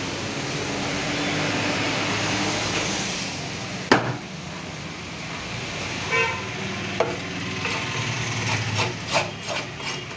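A heavy fish-cutting knife chopping silver carp on a wooden block. There is one sharp, loud chop about four seconds in, then a run of lighter knocks and scrapes near the end.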